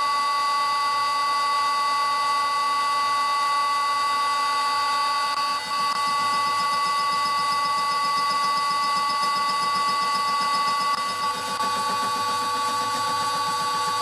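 Lathe spindle spinning a single-point fly cutter across the face of an aluminium block: a loud, steady whine of several held tones, with a fast rhythmic chatter coming in underneath about halfway through as the cutter strikes the metal on each turn.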